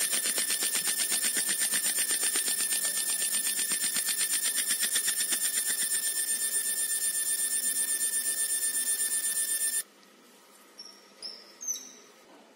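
50 W fiber laser marking machine cutting thin brass sheet: a steady, high-pitched buzz that pulses rapidly as the beam scans the pattern, cutting off suddenly near the end. A few faint short high chirps follow.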